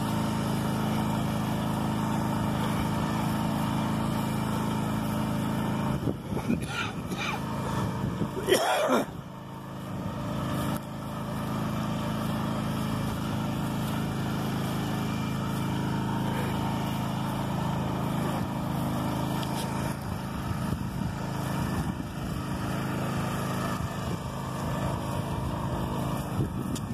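Engine of a BCS two-wheel walk-behind tractor running steadily while pulling a weighted roller crimper. A brief louder, irregular noise comes about eight to nine seconds in.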